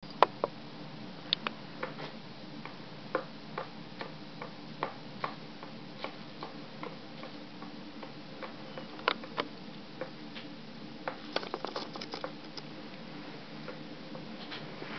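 Hand-pulling laghman noodle dough on a wooden board: irregular light clicks and taps, about one or two a second with a quicker run about three quarters of the way through, over a steady low hum.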